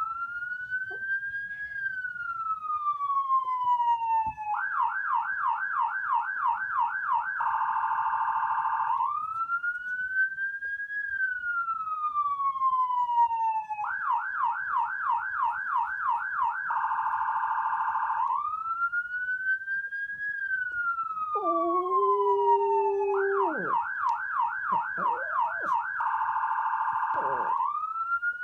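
Electronic emergency-vehicle siren cycling through a slow rising-and-falling wail, a fast yelp and a steady buzzing tone, the same pattern repeating about every nine seconds, three times over. A lower, shorter held tone sounds under it about two-thirds of the way through.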